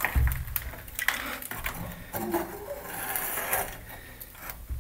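Old wooden panel door rattling and knocking in its frame as it is pushed and its latch is tried, with sharp clicks near the start, about a second in and near the end; the door is locked and does not give.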